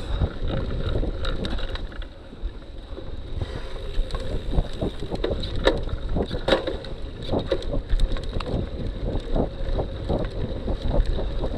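Cyclocross bike ridden fast over a bumpy dirt track: wind buffeting the microphone and the rumble of the tyres, with many short clicks and knocks from the bike rattling over the bumps. It goes a little quieter for a moment about two seconds in.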